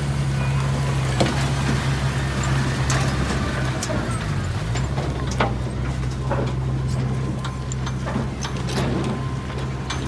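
Bulldozer's diesel engine running steadily under work, its pitch dipping briefly about halfway through before recovering, with scattered clanks and knocks over it.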